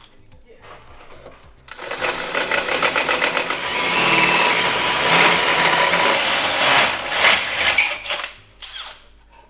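A power tool running loudly for about six seconds with a rapid pulsing texture, then stopping, followed by a couple of short bursts near the end.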